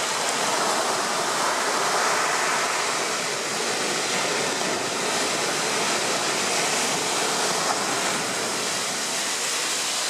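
Ocean surf breaking and washing up the beach as foam, a steady rushing noise that swells slightly about two seconds in.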